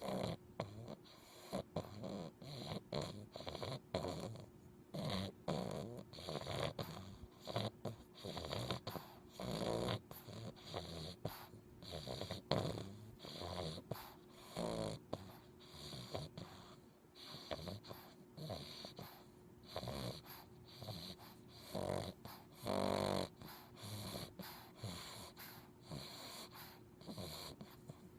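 English bulldog puppy snoring in its sleep: short, irregular snores about once or twice a second, with a few longer, louder ones along the way.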